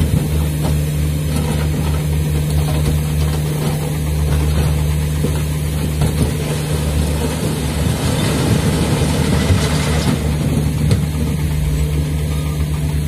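Hino 500 dump truck's diesel engine running steadily while the hydraulic hoist raises the tipper body to dump its load of fill. About halfway through, a rougher rushing noise joins in as the fill slides off the tilted bed.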